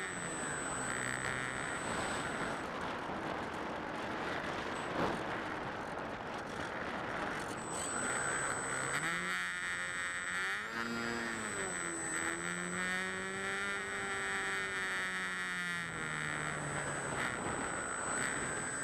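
Delta 600 RC model plane's motor and propeller heard from the plane's own onboard camera, with steady wind rush over the airframe. The motor's pitch holds steady, then rises and falls several times in the middle as the throttle changes during turns.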